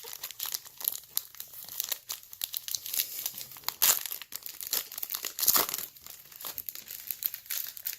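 Glossy chromium trading cards being flipped, slid and shuffled in the hands: an irregular run of sharp ticks, slaps and rustles, with a couple of louder snaps about four and five and a half seconds in.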